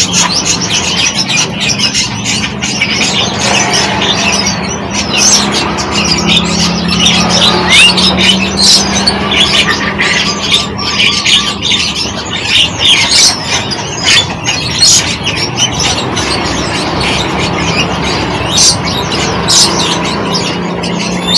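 Many small birds chirping and calling at once, a dense overlapping chorus of short, sharp high calls, over a steady low hum.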